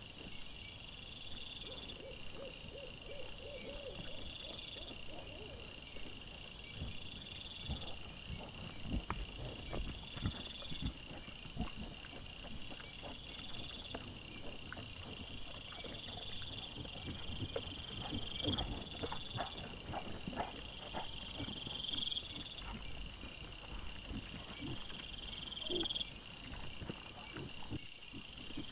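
Night insects chirping in repeating trills, over rustling, soft knocks and scuffs from wild boar and their piglets rooting and moving through dry grass and leaf litter.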